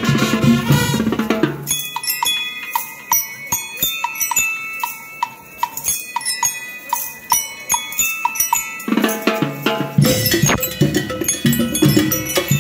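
School rhythm band playing: the full band with drums for a moment, then from about two seconds in the metal bell lyres play a bright melody of struck notes on their own. Around nine seconds in, the drums and the rest of the band come back in.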